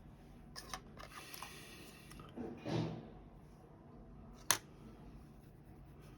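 Small plastic parts being handled: a few faint clicks and a short rustle, then one sharp click about four and a half seconds in.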